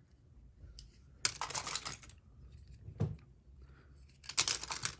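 Hard plastic Beyblade tops and parts clicking and clattering together as they are handled, in two short clusters about a second in and near the end, with a single thump about three seconds in.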